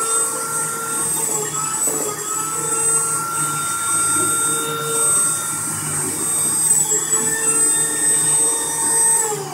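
High-speed drilling spindle of an fcarve PCB Master CNC machine whining steadily as it drills through four stacked circuit boards, its pitch dipping slightly now and then. Just before the end the whine slides down as the spindle slows.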